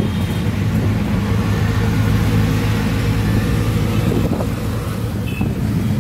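Auto-rickshaw engine running steadily under way, heard from inside the open passenger cab as a low, even hum mixed with road and traffic noise.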